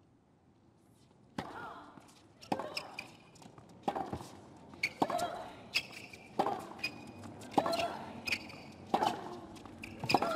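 Tennis rally on a hard court: the ball struck by rackets and bouncing, sharp hits about once a second starting about a second and a half in, with a player's short grunt at several of the shots.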